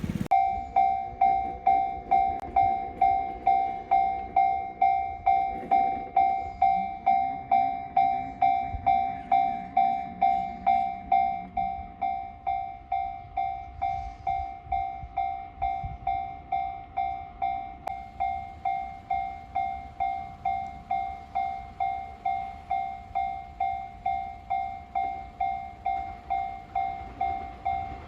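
Japanese railway level-crossing warning bell ringing steadily, about two strikes a second, each a bright ringing tone that fades quickly. A train's low rumble runs underneath in the first half and dies away.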